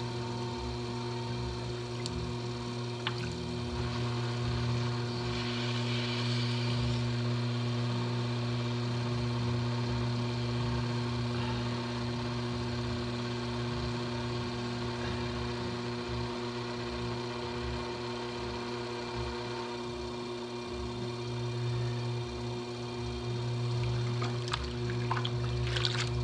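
Electric potter's wheel running with a steady hum while wet, slip-covered hands slide over a large clay pot spinning on it, giving a wet swishing sound.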